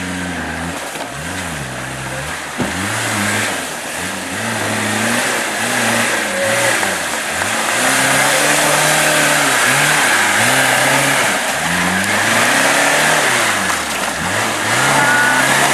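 Off-road trial car's engine revving up and falling back again and again, about every second or two, over a steady noisy hiss. It gets louder from about halfway through.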